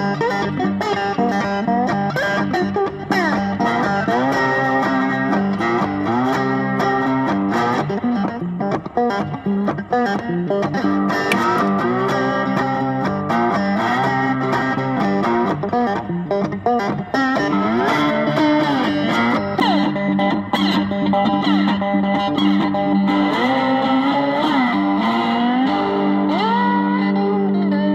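Background music led by a guitar, its notes bending and sliding in pitch over a steady low note.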